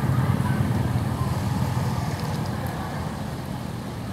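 Low rumble of a motor vehicle going by, slowly fading away.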